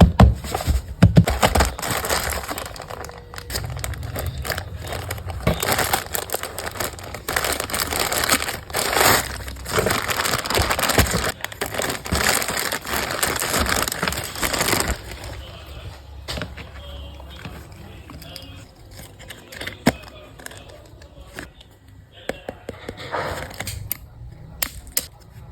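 Packaging being crinkled and torn open by hand, dense and fairly loud for about the first fifteen seconds, then quieter handling with scattered clicks and rustles.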